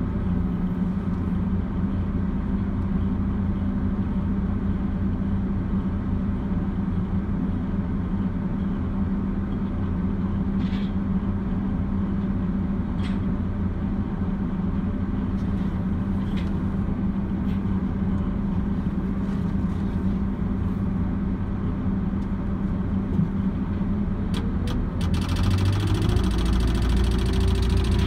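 Diesel engine of a Liebherr LTM 1160-5.2 mobile crane running steadily at a low hum, revving up with a rising pitch and getting louder near the end, as the crane takes up a load.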